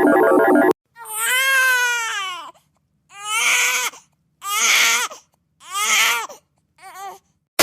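A baby crying: one long wail, then four shorter wails with pauses between them, each one falling in pitch at its end. In the first second, a dense, clashing sound effect ends abruptly.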